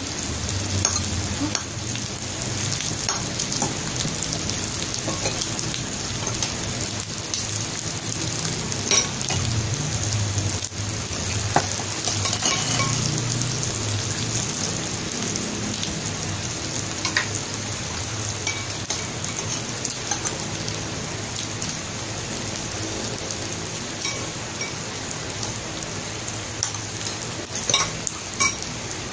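Meat sizzling steadily on an electric grill plate. Scattered clicks of spoons and forks against ceramic bowls, several near the end.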